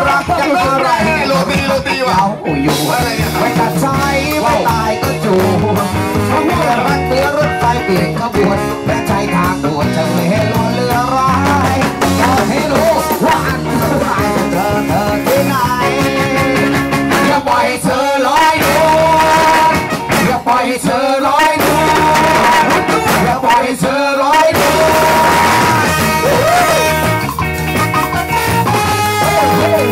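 Live ska band playing: electric guitars, bass and drums with a trumpet and trombone horn section and a lead vocal. Long held notes ring out about two-thirds of the way through.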